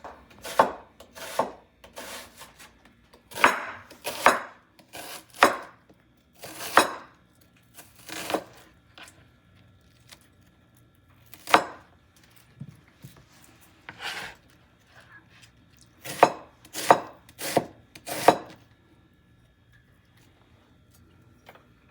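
A knife chopping an onion on a cutting board: single cuts at an uneven pace, about one a second, with a few short pauses.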